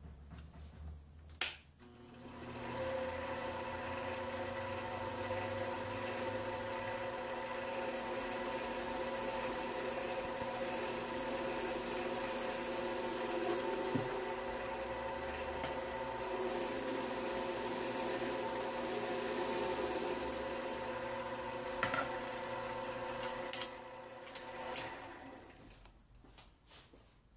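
Mini metal lathe switched on with a click, its motor and spindle running with a steady whine for about twenty seconds, then winding down near the end. A high hiss comes in twice as the cutting tool works the small part in the chuck.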